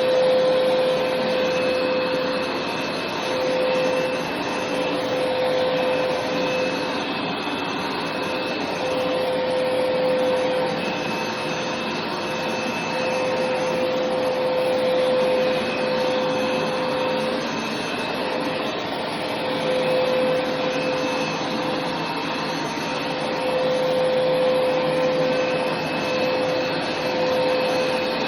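Hoover carpet-cleaning machine running steadily over carpet, its motor making an even rushing hum with a whine that drops out and comes back, and gentle swells in loudness every couple of seconds.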